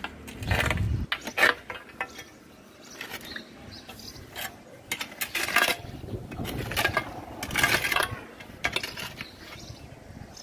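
Concrete slabs and broken bricks being shifted over a concrete drain: a string of short stony scrapes and knocks, roughly one a second, with quiet gaps between them.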